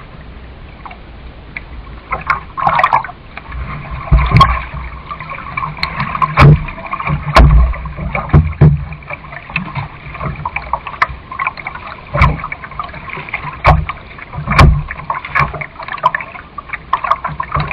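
Canoe being paddled: water splashing and sloshing around the hull, with irregular knocks and dull thumps every second or two.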